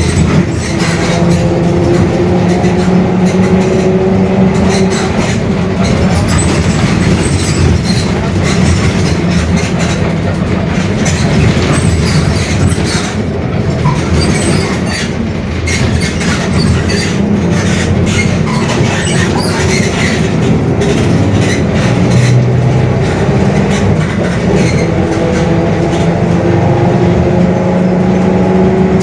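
Mercedes-Benz OF-1721 Bluetec 5 city bus heard from inside while driving: the diesel engine and a droning differential whine fall in pitch over the first few seconds as the bus slows, then climb again near the end as it picks up speed. Loose body panels and fittings rattle throughout; the title calls the differential droning.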